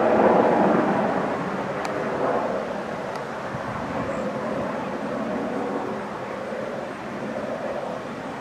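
Helicopter flying overhead, its rotor and engine noise loudest in the first second, then fading gradually.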